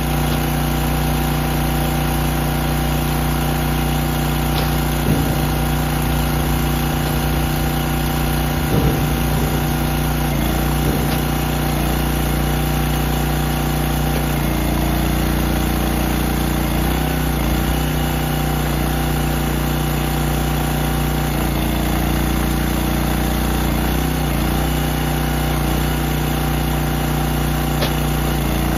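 Gasoline engine of a hydraulic log splitter running steadily. Its note dips briefly a few times as the ram splits logs, and there are a couple of knocks of wood.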